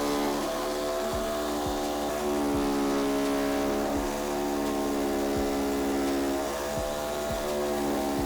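A power tool's motor running steadily, its pitch shifting slightly a couple of times as if the load changes.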